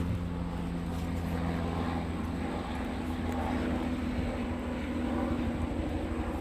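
A helicopter flying over, giving a steady low drone from its engine and rotor.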